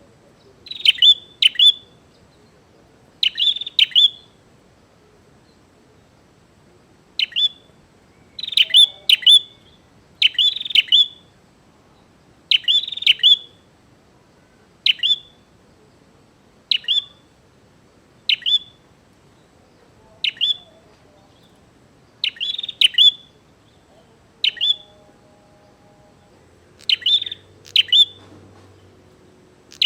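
Prinia (prenjak) calling with sharp, high chirps, singly or in quick pairs and short clusters, repeated every second or two: the busy, challenging calls of a bird inviting a rival to fight.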